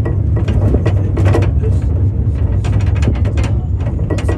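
Tour tram running, with a steady low rumble and constant clicking and rattling.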